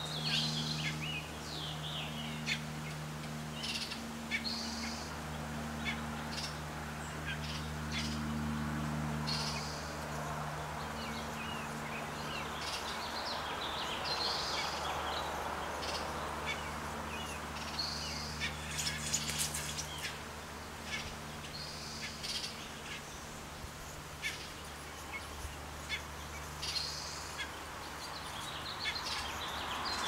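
Birds chirping with short, high calls scattered all through, over a steady low hum that stops a few seconds before the end.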